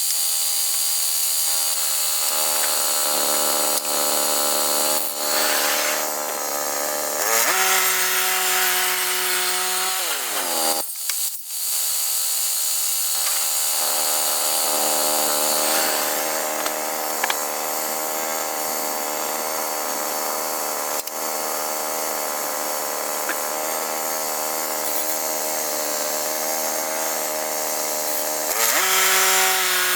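Woodland Mills HM122 bandsaw sawmill running, its engine under load as the band blade cuts through a log, with a steady hiss of sawing. The engine note shifts with the load: it settles into a steadier note for a few seconds about seven seconds in and again near the end, and dips briefly around ten seconds in.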